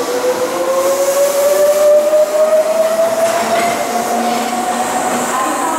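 Tobu 8000-series electric train pulling out of the station, its motor whine rising steadily in pitch as it picks up speed, over the rumble of the wheels on the rails.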